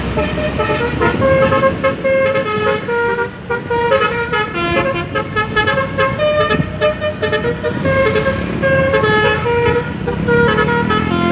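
Basuri V3 telolet, a multi-tone musical air horn on a bus, playing a rapid melody of short, loud notes over the bus engine's low rumble. A deeper tone joins near the end.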